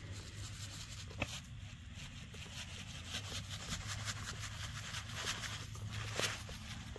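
Fire ant killer granules shaken from a plastic bag, pattering faintly onto an ant mound in grass as a scatter of small irregular ticks, with a sharper tick about a second in and another near the end.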